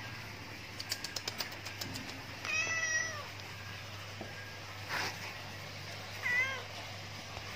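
Domestic cat meowing twice: a longer meow about two and a half seconds in and a shorter one a little after six seconds. A few light clicks come about a second in, before the first meow.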